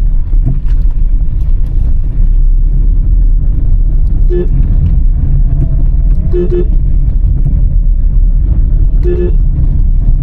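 Steady low rumble of a car driving slowly, with three short toots of a car horn spaced a couple of seconds apart.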